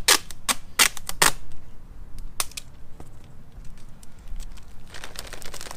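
Crinkling from handling a trash-bag figure stuffed with newspaper: a quick run of sharp crackles in the first second and a half, a few single crackles after, and a longer rustle near the end.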